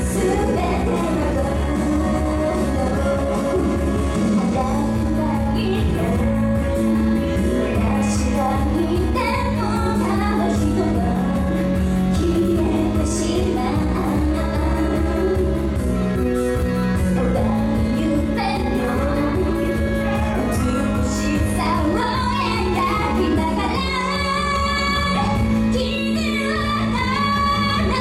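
A teenage girl singing a pop song live into a handheld microphone over a loud, steady backing track with a pulsing bass line.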